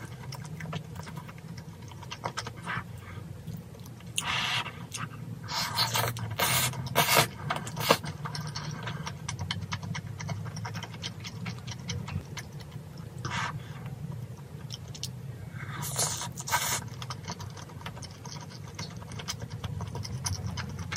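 Eating sounds: a spoon scraping and clinking against a small ceramic bowl of saucy tteokbokki, with chewing in between. There are a few louder scrapes and clicks about four to eight seconds in and again around sixteen seconds.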